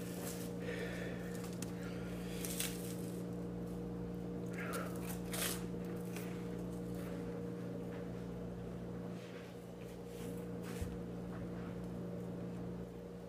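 A person chewing toast, with a few short crunchy mouth sounds scattered through, over a steady low electrical hum.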